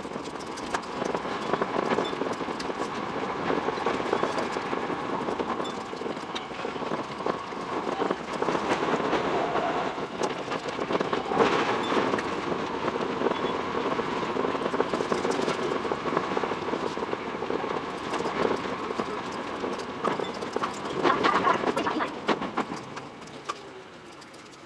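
Running noise of a Tokyo Metro 10000 series electric train, heard from on board and sped up sixfold, so the wheel clicks over rail joints come as a dense rapid chatter over a steady rushing noise. The sound fades near the end.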